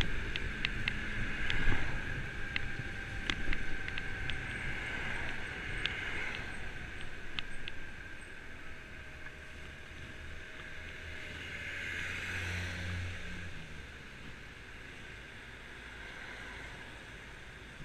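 Kymco Agility 50cc scooter on the move on a wet road: wind rush with engine and tyre noise, and scattered sharp ticks in the first half. The sound falls away over the second half as the scooter slows and pulls up in traffic.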